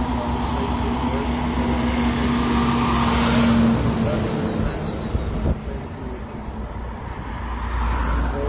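Heavy truck approaching and passing close by, its engine droning with a steady tone and the noise swelling to a peak about three and a half seconds in, then fading. A short knock comes shortly after, and a car approaches and passes near the end.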